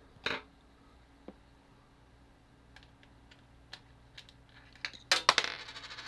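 Metal screwdriver tip clicking and scraping against a CMOS coin-cell battery and its socket clip as the battery is pried out. A few faint ticks come first, then a cluster of sharp metallic clicks about five seconds in, over a faint low hum from the running computer.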